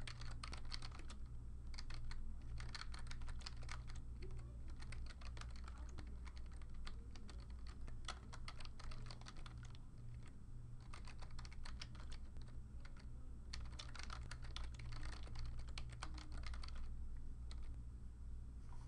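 Typing on a computer keyboard: runs of fast key clicks broken by short pauses, over a steady low hum.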